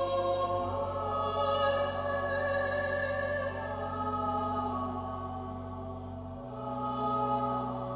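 Mixed choir singing slow, sustained chords over organ. The organ's low bass notes change about half a second in and again near the end.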